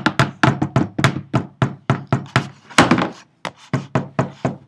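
Rocks pounding yucca leaves against a tabletop: a fast, uneven run of knocks, about four or five a second. The leaves are being crushed to loosen their fibers into a brush.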